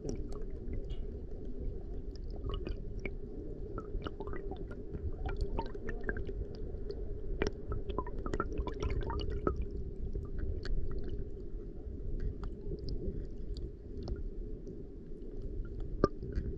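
Underwater ambience picked up by a submerged camera in shallow sea water: a steady low rumble of moving water with many faint scattered clicks and crackles. A sharper click stands out a little after halfway and another near the end.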